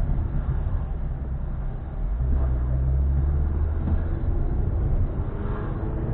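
Volkswagen Fox 1.0 hatchback driving at road speed, heard from inside the cabin as a steady low engine and tyre rumble that grows louder about two seconds in.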